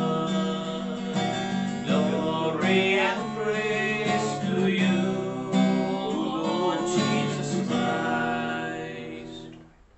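Acoustic guitar strumming the accompaniment of a gospel acclamation hymn, fading out near the end.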